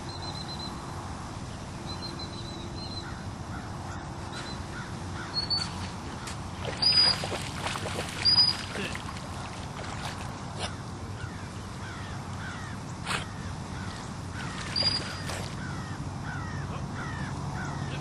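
Short single blasts of a dog-training whistle, the two loudest about seven and eight and a half seconds in, used to handle a retriever swimming in the water. Birds call and chatter in the background.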